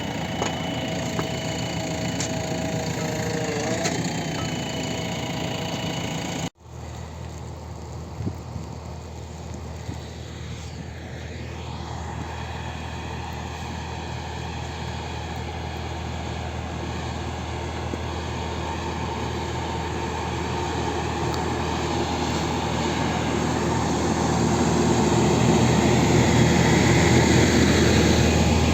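A heavy vehicle engine running steadily, with a sudden break about six and a half seconds in, then growing gradually louder toward the end.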